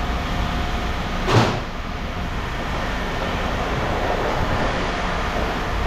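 Scrap metal being handled over a steady low machine rumble, with one sharp metal clank about a second and a half in.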